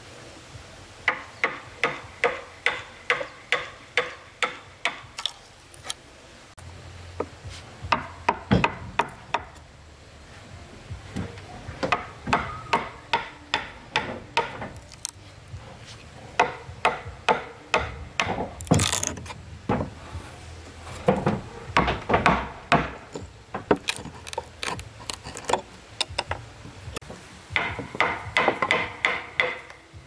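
Hammer blows on wood in several runs of quick, even strikes, about two to three a second, with short pauses between runs; each blow carries a short metallic ring.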